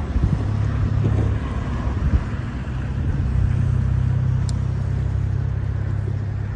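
Low, steady rumble of a motor boat's engine running on the river, mixed with wind buffeting the microphone.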